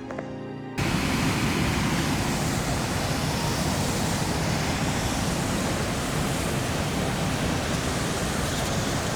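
A fast, swollen river rushing over rocks: a steady, loud roar of white water that cuts in suddenly about a second in.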